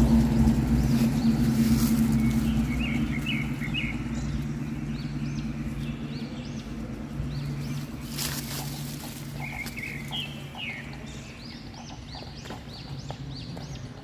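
Northern mockingbird calling in two bursts of quick chirping notes, about three seconds in and again about ten seconds in, each followed by a run of fainter high notes. Under it, a low engine hum fades away.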